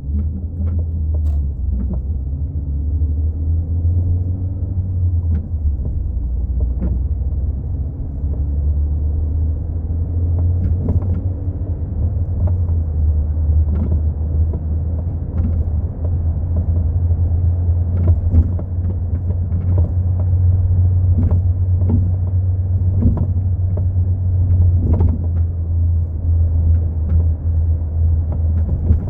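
Steady low rumble inside a moving VW MK4 Golf, with irregular short knocks and clunks from a failing rear shock absorber.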